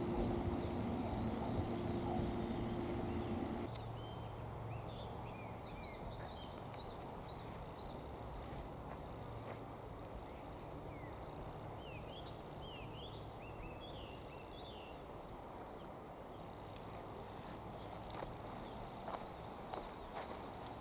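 Rural summer ambience: insects buzzing in a steady high drone, with short bird chirps coming and going through the middle. A steady low machine hum stops suddenly about four seconds in, and a few light taps come near the end.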